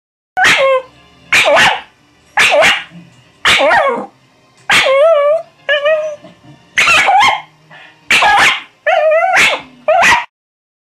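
Scottish terrier barking: about a dozen sharp barks, many in quick pairs, a few drawn out into short wavering yowls around the middle. The barking cuts off suddenly near the end.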